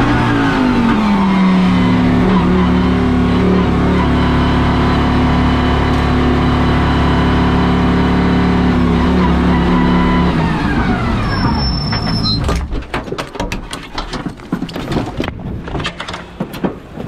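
Lamborghini Huracán GT3 EVO2's V10 engine slows down in the first second or so, then runs at a steady low speed for several seconds, winds down and shuts off about twelve seconds in. After that come scattered clicks and knocks from the car's door and fittings as the driver climbs out.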